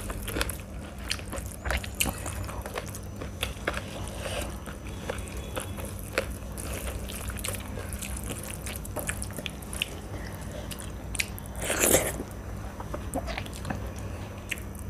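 Close-miked eating sounds: wet chewing and mouth clicks while fingers squish and mix rice with chicken curry gravy in a steel plate. Near the end comes one louder, longer wet mouth sound.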